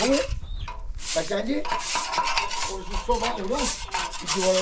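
Straw hand broom sweeping over a cement and stone path, brushing strokes about once a second.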